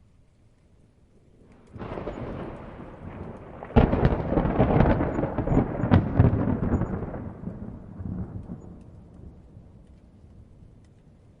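Thunder: a rumble builds about two seconds in, then a sharp crack near four seconds sets off a loud rolling rumble that fades away over several seconds. Light rain hisses faintly underneath.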